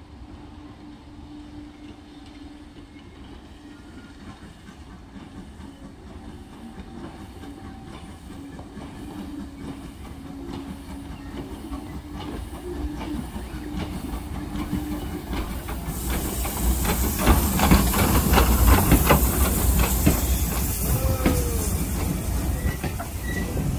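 Small steam tank locomotive hauling vintage carriages approaches and passes close by, growing steadily louder. A strong steam hiss sets in about two-thirds through as the engine goes by, with the wheels clacking over the rail joints as the carriages roll past.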